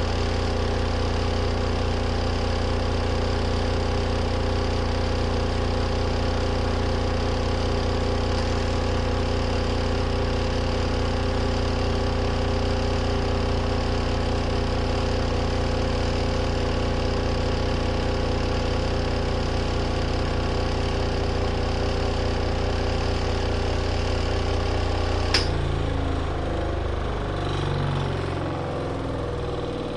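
Compact RV washing machine's spin motor running at a steady speed with a strong hum. About 25 seconds in it cuts off with a sharp click, and the drum rumbles unevenly as it winds down.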